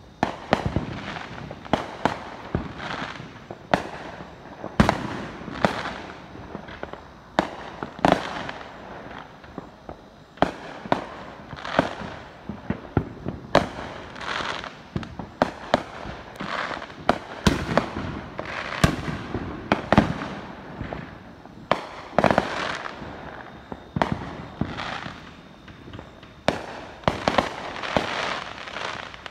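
Neighbourhood consumer fireworks going off: a steady, irregular string of sharp bangs, roughly one to two a second, some louder and closer than others.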